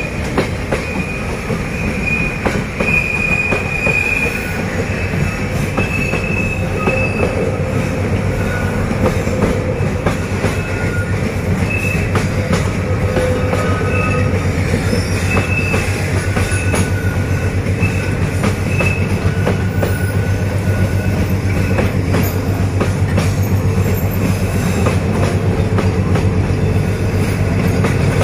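Freight train's covered boxcars rolling past: a steady rumble of steel wheels on rail, with short wheel squeals coming and going, mostly in the first half, and clicks from the rail joints.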